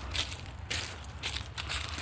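Footsteps crunching and crackling over dry debris, in irregular, uneven steps.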